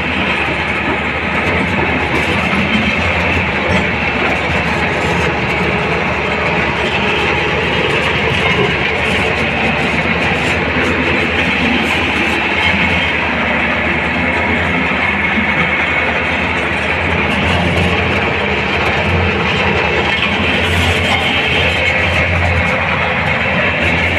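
Heavy diesel vehicle's engine running steadily, a continuous low drone under a steady noisy hiss that holds at an even level throughout.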